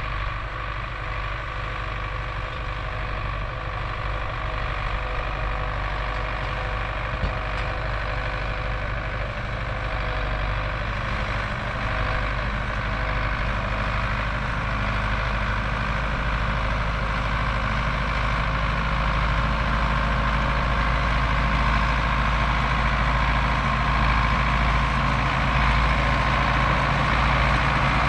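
MTZ-82 tractor's four-cylinder diesel engine running at a steady pace as it pulls a loaded hay trailer, growing louder as it comes closer.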